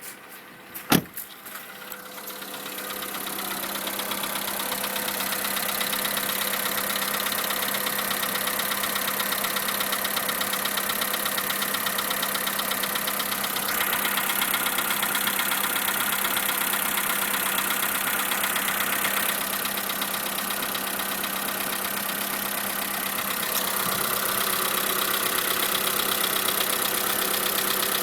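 Skoda Fabia 1.4 engine idling cold with a rhythmic knock, which a tensioner-roller change did not cure and which was finally put down to the piston group, replaced under warranty. A sharp click about a second in.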